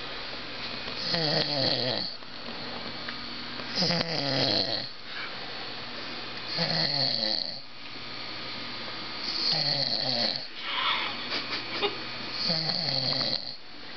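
A drunk man passed out and snoring, one snore about every three seconds, five in all, each lasting about a second.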